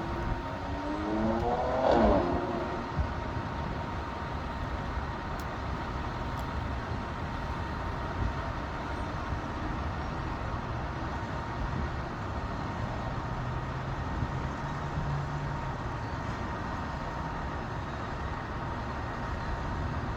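Outdoor construction-site and traffic noise: a vehicle speeds up and passes about two seconds in, then a steady rumble of machinery and traffic with a constant high whine.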